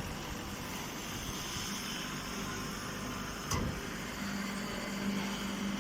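A machine running with a steady noise, with a single sharp click about three and a half seconds in and a steady low hum joining about a second later.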